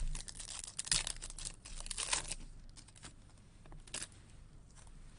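Foil trading-card pack wrapper being torn open and crinkled by hand, in several short bursts with the loudest about one and two seconds in.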